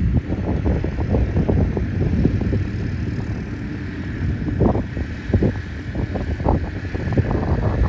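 Wind buffeting the microphone outdoors: an uneven, gusty low rumble with irregular puffs throughout.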